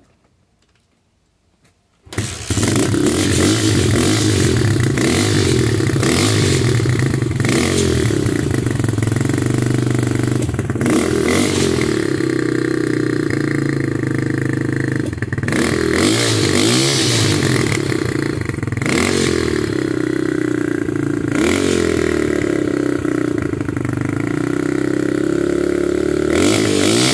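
A small four-stroke dirt bike engine, just filled with fresh 10W40 oil, starts about two seconds in and runs loudly, its revs rising and falling several times as the throttle is blipped.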